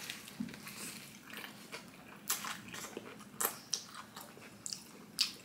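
Close-miked biting and chewing of a toasted shawarma wrap: wet mouth sounds with a few sharp crunches from the toasted flatbread.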